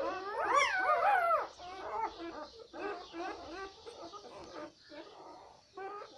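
A litter of newborn puppies crying and whimpering together, many overlapping high cries; the loudest, longest cries come in the first second and a half, then shorter ones keep on.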